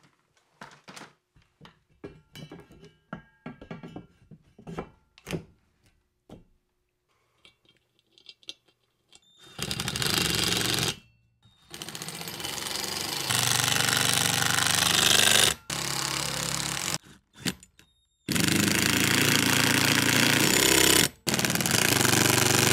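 A few quiet knocks and clicks as metal parts are handled, then a Ryobi 18V cordless impact driver hammering screws through a steel mounting plate into a wooden ceiling joist. It runs in about five long bursts with short pauses between them, starting about nine seconds in.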